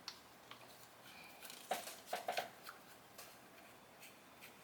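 Faint small clicks and scrapes of a hex key backing out a screw on an airsoft gas blowback gun, a few light clicks scattered through, with a small cluster about two seconds in.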